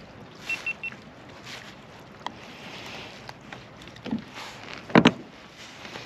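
Hands unhooking a tautog in a kayak cockpit, with small clicks and knocks of handling. Three quick high electronic beeps come about half a second in, and a short loud low-pitched burst comes about five seconds in.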